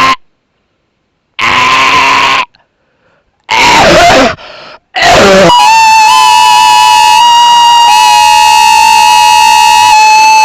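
Mock Emergency Alert System alert. First come loud, harsh blasts about a second long with short silent gaps, the later ones bending downward in pitch. Then, from about five seconds in, a loud steady alarm tone with overtones takes over and shifts slightly in pitch a couple of times.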